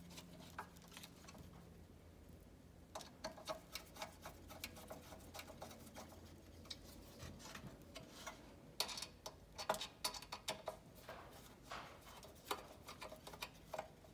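Faint, irregular small clicks and ticks as set screws are tightened on the pins of a strobe's flash tube. The clicks become more frequent from about three seconds in.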